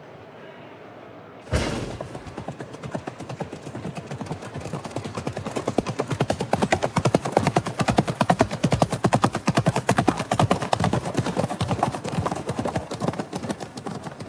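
A sudden loud bang about a second and a half in, then hooves galloping in a fast, dense clatter that builds louder for several seconds and eases off near the end.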